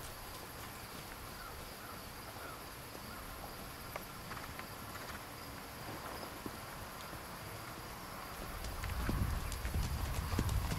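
Hoofbeats of a horse trotting and cantering on sand arena footing: soft, scattered light thuds over a steady background hiss. A louder low rumble builds near the end.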